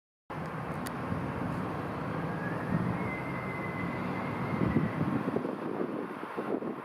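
Steady, low, crackling outdoor rumble. A faint thin high tone rises in about two seconds in and holds for a few seconds.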